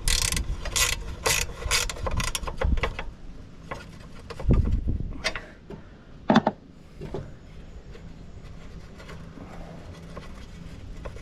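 A spanner working a bolt under a ride-on mower's front cover: quick clicks at about three a second for the first three seconds, then a few single knocks, the loudest about six seconds in.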